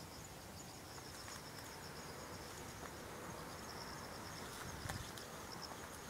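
Insects chirping in a steady, high, pulsing trill.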